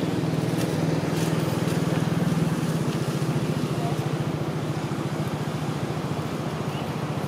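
A small engine running steadily, a low hum with a fast regular pulse that eases off slightly toward the end.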